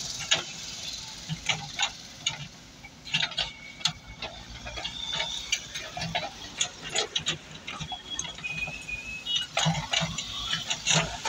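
JCB backhoe loader's bucket dragging through crushed stone, the stones clattering and knocking in many quick irregular clicks, with the machine's diesel engine running low underneath.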